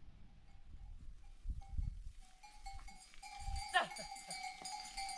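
Livestock bells ringing steadily from about two seconds in, over low rumbling bumps, with a short falling bleat near the middle.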